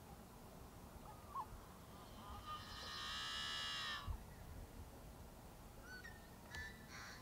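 Wild birds calling over quiet marsh background: one drawn-out call of more than a second that grows louder and cuts off sharply about four seconds in, with a short chirp before it and a few brief chirps near the end.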